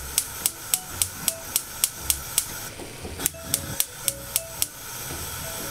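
Gas hob's spark igniter clicking rapidly, about three or four clicks a second, with a short break about two and a half seconds in, as the burner is lit. The clicking stops near the end, leaving a steady hiss from the burner's flame.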